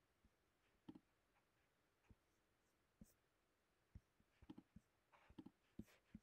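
Faint clicks of a computer pointing device selecting items on screen, about a dozen at irregular intervals, sparse at first and coming in quick runs in the second half.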